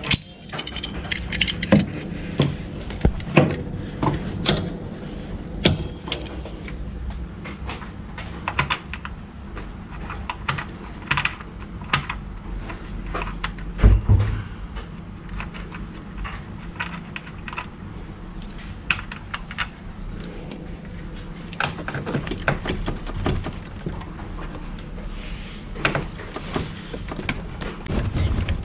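Irregular clicks, knocks and light metallic clatter of hand tools and parts being handled during repair work, with one heavier thump about 14 seconds in, over a steady low hum.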